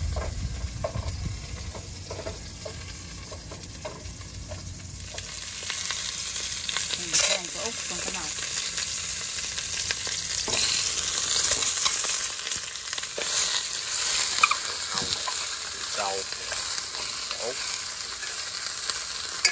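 Fish sizzling in a hot pot as it is braised, with the clicks and knocks of a utensil stirring. The sizzle grows much louder about five seconds in.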